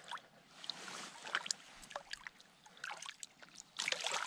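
Shallow river water sloshing and lightly splashing around hands holding a released asp, then a louder burst of splashing about four seconds in as the fish kicks free and swims off.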